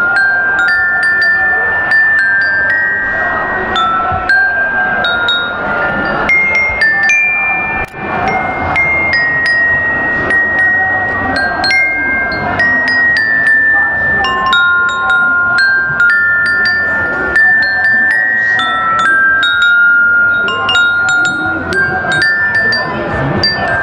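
Yamaha glockenspiel played with two mallets: a melody of struck metal-bar notes, each ringing on briefly, one or two at a time, over street crowd noise.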